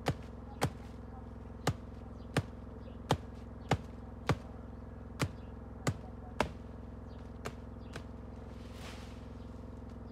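Machete chopping at a thin woody branch: about ten sharp strikes, one every half second to second, stopping about six and a half seconds in, followed by two faint knocks and a brief rustle.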